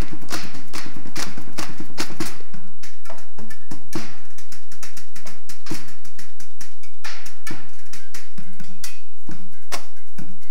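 Found-object percussion ensemble playing: quick, dense strikes over steady low tones for the first couple of seconds, then sparser, syncopated hits with short gaps, with hand-held black discs clashed together like cymbals.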